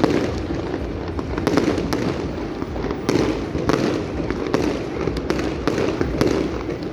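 Fireworks display going off: a continuous barrage of booming bursts and crackling, with many sharp cracks over a constant rumble.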